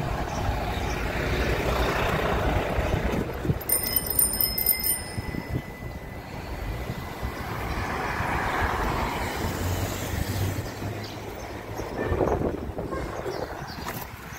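Street traffic and wind rushing past an open pedicab riding along a busy city avenue. About four seconds in comes a brief, high ringing.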